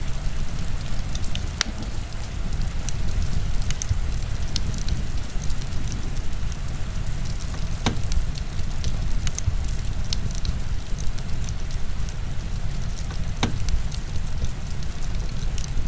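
Heavy rain with a steady low rumble, mixed with a crackling wood fire whose sharp pops come at irregular intervals.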